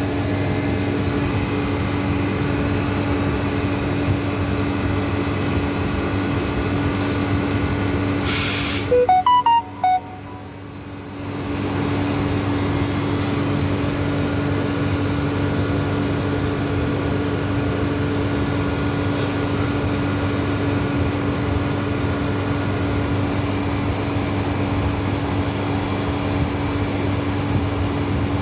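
Cold-room refrigeration machinery running with a steady hum and a steady low tone. About eight seconds in there is a brief hiss and a few short beeps. The hum drops away for a couple of seconds, then comes back.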